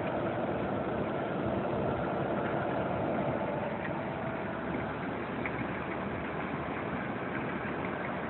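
A car's engine running with a steady rumble and a faint hum that doesn't change.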